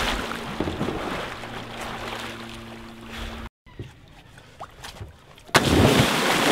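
A loud, even rushing noise on a kayak-mounted action camera's microphone. It breaks off suddenly a little past three seconds in, stays quieter for about two seconds, then comes back loud near the end.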